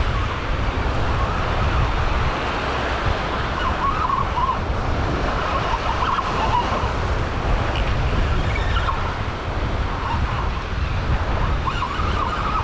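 Small surf waves washing up the beach with wind buffeting the microphone, a steady low rumble. Faint wavering tones come and go over it, about halfway through and again near the end.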